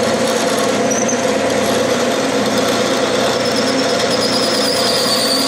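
Clausing metal lathe running while a quarter-inch twist drill in the tailstock chuck cuts into spinning brass stock, lubricated with cutting oil and drilling easily: a steady machine hum. A thin, wavering high squeal comes in a little past three seconds and rises slightly.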